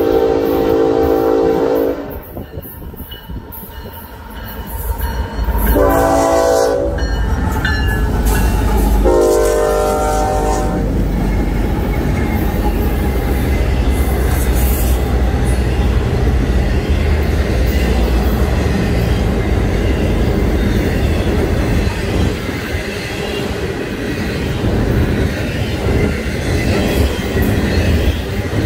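Freight train horn sounding three times as the diesel locomotives approach: a long blast at the start, a shorter one about six seconds in and another about nine seconds in. Then the locomotives run past and an intermodal train of flatcars carrying trailers and containers rolls by, with a steady low rumble and wheel noise on the rails.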